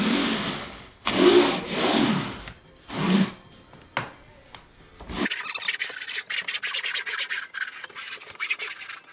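Wooden-handled float rubbing across a dimpled plastic uncoupling membrane, pressing it down into thinset to collapse the trowel lines for full coverage. There are about three long scraping strokes, then after about five seconds a thinner, rapid scratchy rasp full of fine clicks.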